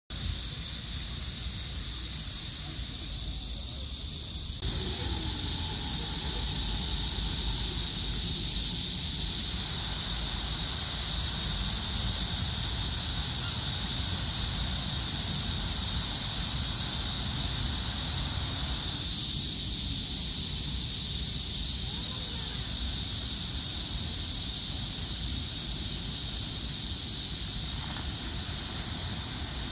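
Pond fountain jets spraying and splashing back into the water, a steady rushing hiss that grows louder about four and a half seconds in, with a high steady whine over it.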